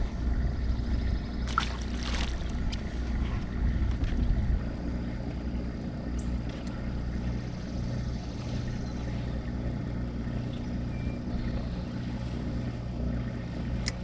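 Steady low hum of a small motor on a fishing boat, with a few sharp knocks and rattles about one and a half to two and a half seconds in.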